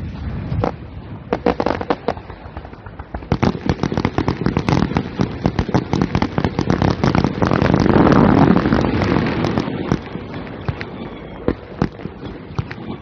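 Fireworks going off: a rapid run of sharp cracks and pops that thickens into dense crackling about eight seconds in, then thins to a few scattered pops near the end.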